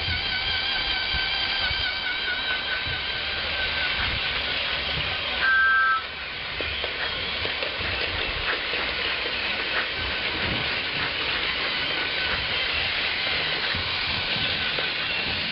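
Steam locomotive sounds for a toy Thomas train: a steady hissing run, with one short two-note whistle about five and a half seconds in.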